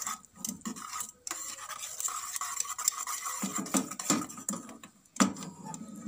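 Metal wire whisk stirring and scraping caramel in a stainless steel saucepan, with quick clinks of the wires against the pan's sides and bottom. A sharp knock about five seconds in is the loudest sound.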